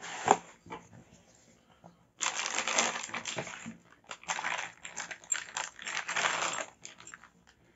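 A few sharp taps from the cardboard box being opened, then about five seconds of loud plastic-bag crinkling in uneven bursts as a boxed shower mixer is unwrapped from its packaging bag.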